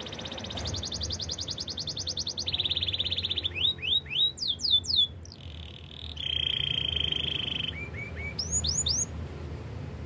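Domestic canary singing a continuous song of rapid trills, switching to a new trill every second or two. It breaks into sharp swooping whistles around four seconds in and again near the end, with a lower rolling trill in between.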